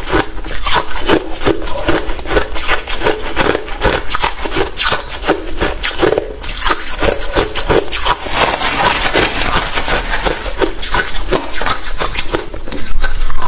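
A person chewing hard refrozen crushed ice: a dense, irregular run of crunches and cracks.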